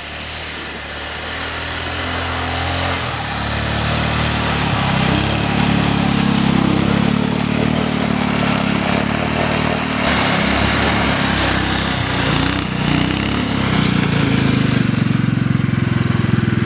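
A mini snowmobile's 200cc engine running as the sled rides through snow, growing louder as it comes close. Near the end it runs close by with a steady, even pulsing beat.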